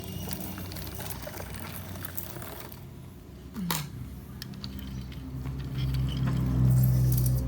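Plastic toy vehicles being handled and pushed, with small clicks and rattles and one sharp knock midway. A low steady hum comes up about two-thirds of the way in and is the loudest sound near the end.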